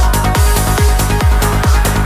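Electronic trance music with a steady kick drum, a little more than two beats a second, under held synth notes.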